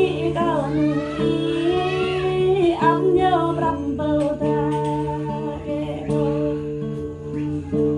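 Jrai-language song: a woman singing a bending melody over plucked guitar and steady held chords, the voice strongest in the first three seconds.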